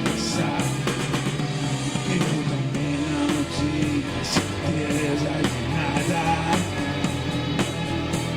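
Rock music: a band passage with guitar and drums, without sung words.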